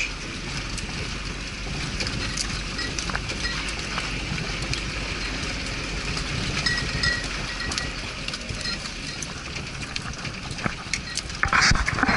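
Off-road vehicle driving over a rough track: a steady low engine and road rumble with frequent short knocks and rattles, and a louder clatter near the end.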